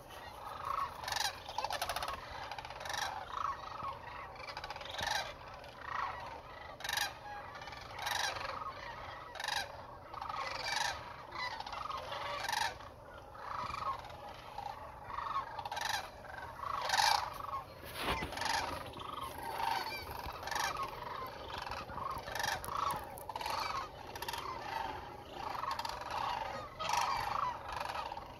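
A large flock of sandhill cranes calling, many calls overlapping one after another without a break.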